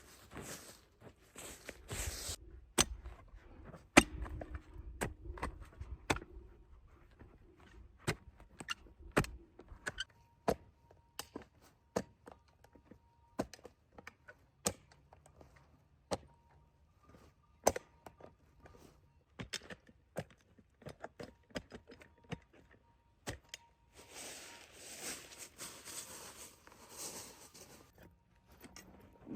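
Gear being handled: scattered sharp clicks and knocks, with a stretch of rustling near the end.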